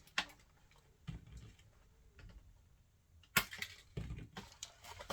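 Hands handling a small plastic toy doll: light rustling and clicks, then one sharp plastic click about three and a half seconds in, followed by a run of smaller clicks.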